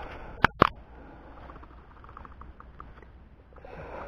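A freshly landed mojarra flopping on the bank: two sharp slaps against the ground about half a second in, then light rustling and tapping in dry leaves.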